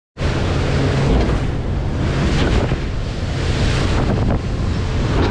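Boat running across open water: wind buffeting the microphone and water rushing against the hull, with a faint steady motor hum underneath.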